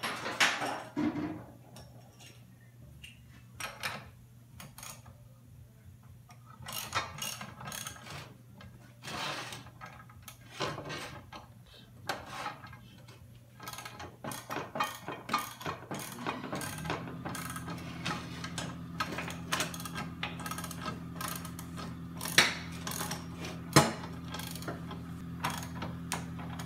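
Motorcycle lift jack being cranked up under the bike's frame: a run of irregular metallic ratcheting clicks and clanks. A steady low hum comes in about two-thirds of the way through.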